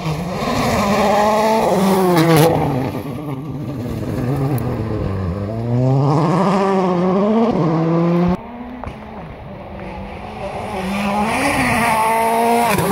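Rally car engine revving hard, its pitch climbing and falling again and again through gear changes and lifts as the car approaches on a gravel stage. The level drops suddenly about two thirds of the way in, then builds again to its loudest as the car arrives near the end.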